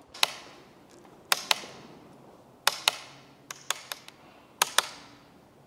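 Magnetic carbon paddle shifter on a BMW F-series steering wheel being pulled and let go, giving sharp clicks, mostly in quick pairs, about once a second, with a quicker run of clicks midway.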